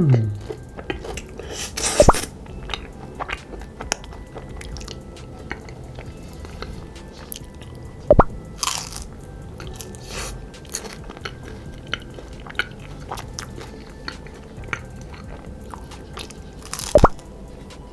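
Close-miked biting and chewing of homemade chocolate-flavoured edible eyeball candy: steady small wet clicks of chewing, with three louder crunching bites, about two seconds in, at about eight seconds and near the end.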